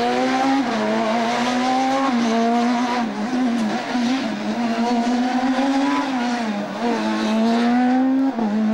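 Rally car engine pulling hard, its pitch climbing and dropping back several times as it accelerates, changes gear and brakes through tight bends.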